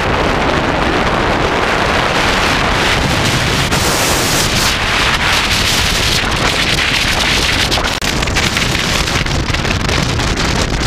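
Wind rushing and buffeting over an onboard camera's microphone at speed, a loud steady roar with road rumble underneath.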